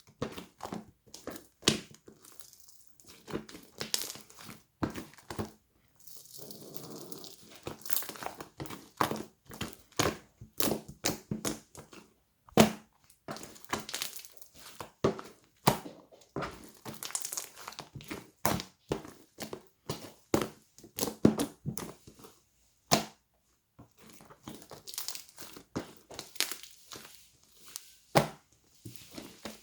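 Slime full of trapped air bubbles being squeezed and pressed by hand, giving quick, irregular crackling clicks and pops, with a short stretch of softer rustling about six seconds in.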